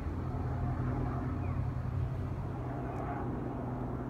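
A steady low mechanical hum, unchanging in pitch, over a bed of outdoor noise.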